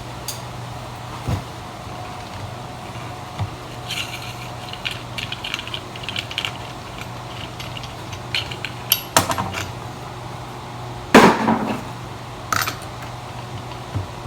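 Metal tools being handled: a run of light clinks and rattles, then a few sharp knocks, the loudest about eleven seconds in, over a steady low hum.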